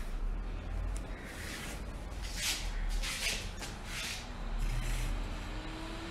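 Rustling and scraping of hands handling a power cable and barrel plug as it is connected. Near the end a 5-inch 12 V DC exhaust fan, fed from a 9 V adapter, starts spinning up with a faint rising hum and whine.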